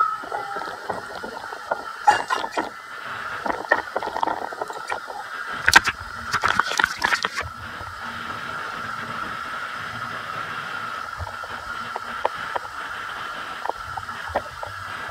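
Water running steadily with a gurgle in a tiled bathroom, overlaid by rustling and knocks, which are loudest and densest for a second or two about six seconds in.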